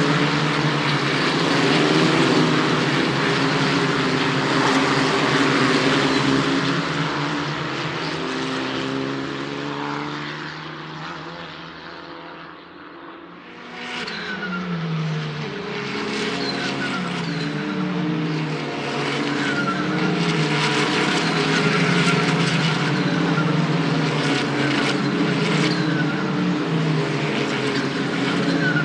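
Race car engines at a circuit: one car's engine fades away, then about half-way through another comes in loud, its pitch stepping up and down repeatedly as it works through the gears.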